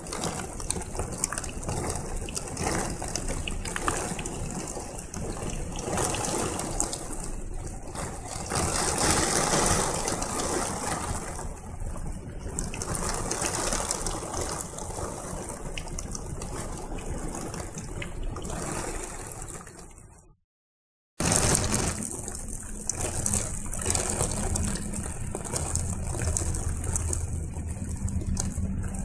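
Storm noise: heavy wind-driven rain and strong gusting wind, surging louder about a third of the way in. The sound cuts out for about a second two-thirds through, then comes back as rain with a low steady hum beneath it.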